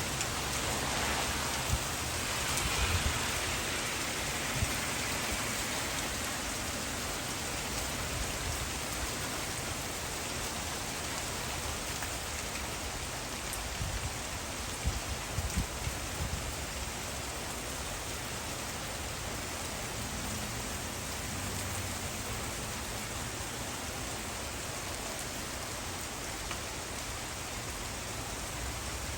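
Hailstorm: heavy rain and hail falling steadily on surfaces, with a few sharper, louder hits in the first five seconds and again about halfway through.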